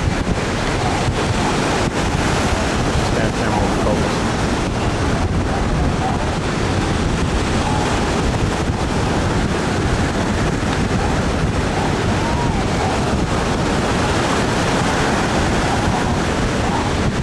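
Ocean surf breaking steadily, with wind buffeting the microphone.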